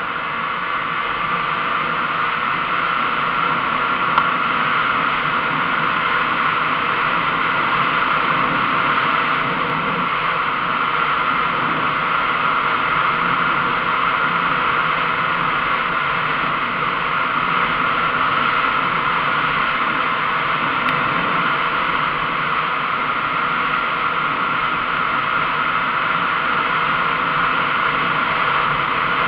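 Kawasaki KMX 125's single-cylinder two-stroke engine running steadily at cruising speed, largely buried under loud wind rush on the action camera's microphone. One short click about four seconds in.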